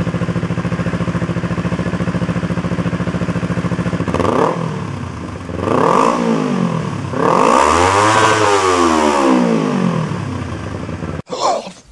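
Kawasaki Ninja 250R's parallel-twin engine, loud through a WACS aftermarket slip-on muffler, idling steadily and then revved. About four seconds in come two short blips, then a longer rev that climbs and falls back before settling, and the sound cuts off abruptly near the end.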